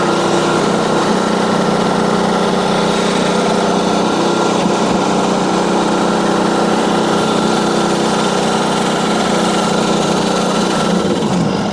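Small petrol engine of a portable bandsaw mill running steadily through a cut, then slowing and dying in the last second as it runs out of fuel.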